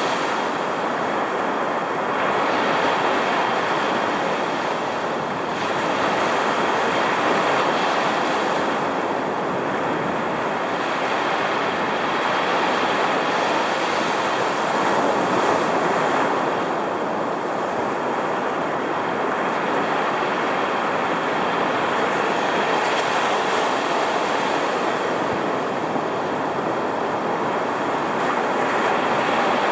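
Rough ocean surf breaking and washing up the beach close by, a dense roar that swells and eases every several seconds as each wave comes in, with wind driven by a strong cold front.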